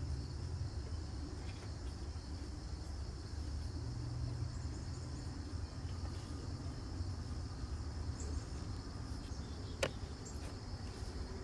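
Steady high-pitched chirring of insects, with a low rumble underneath and one sharp click near the end.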